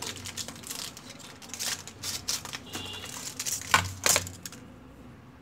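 Plastic packaging crinkling and rustling as it is snipped open with scissors and handled, in irregular bursts. Two sharper snaps come about four seconds in, then the rustling dies down.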